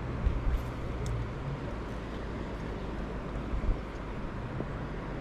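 Steady wind noise rushing over the microphone, with a few low thumps from gusts or handling.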